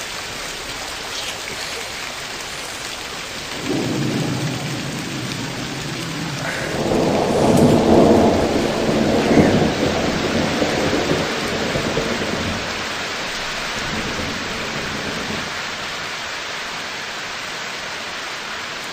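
Steady rain with rolling thunder, loudest from about seven to ten seconds in, then easing off.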